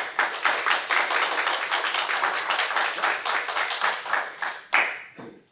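Audience applauding with dense, irregular clapping that thins out and stops near the end.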